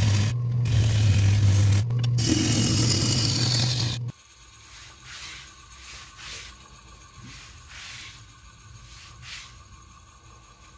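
A wood lathe runs with a steady motor hum while a turning tool cuts the spinning, still-wet Sissoo (Indian rosewood) bowl blank, giving a loud scraping hiss of shavings with two brief breaks. About four seconds in, it all stops abruptly. After that there is only faint rubbing and handling of the stopped wooden blank.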